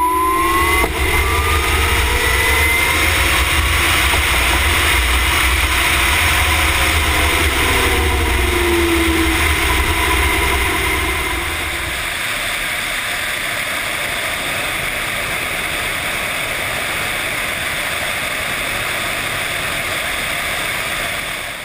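Heavy wind rushing over the onboard microphone of the Buckeye Current RW2 electric racing motorcycle at speed, with the single-gear electric drive's faint whine rising smoothly in pitch over the first few seconds as the bike accelerates, with no gear changes. The low wind rumble eases about twelve seconds in.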